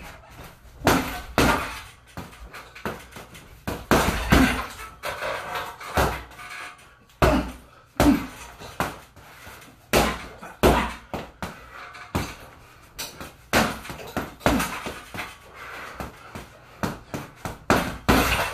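Boxing gloves punching an Everlast heavy bag on a stand: sharp thuds in quick combinations of two or three, with short pauses between them.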